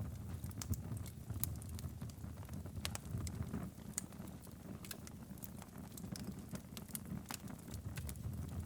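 Wood fire in a fireplace crackling and popping: sharp irregular pops over a low steady rumble.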